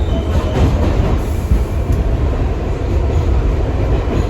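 Subway train in motion, heard from inside the car: a loud, steady low rumble of wheels and running gear on the track.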